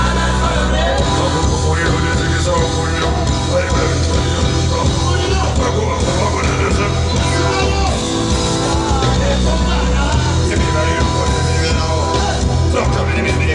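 Loud amplified band music with a heavy, steady bass line and singing over a PA system.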